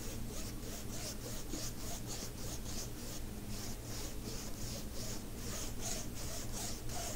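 Foam brush swishing back and forth across the resin drills of a diamond painting as sealant is brushed on, a scratchy rubbing stroke about three times a second.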